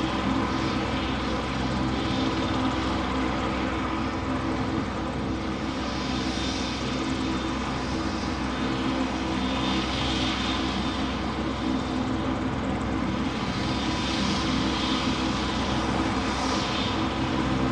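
A steady engine drone: a constant low, multi-toned hum over an even hiss that swells slightly now and then.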